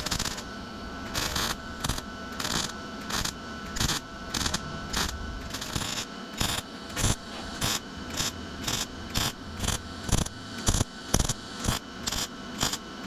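MIG welding arc crackling in short, evenly spaced bursts while a gap in rusty sheet metal is filled. The bursts come about one and a half a second at first and quicken to about two a second about halfway through.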